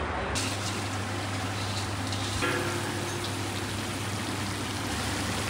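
Oil sizzling in a large pilaf kazan, with rice heaped over carrots frying in the oil, as a steady hiss.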